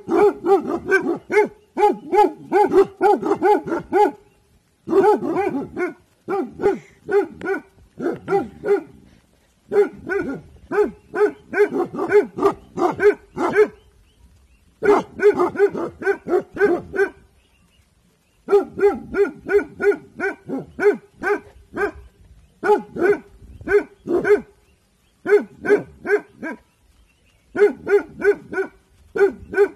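Bhotia guard dog barking on alert in volleys of rapid barks, about three a second, broken by short pauses every few seconds.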